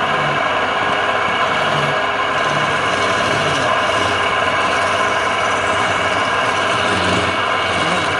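Wood lathe motor running steadily with a constant whine.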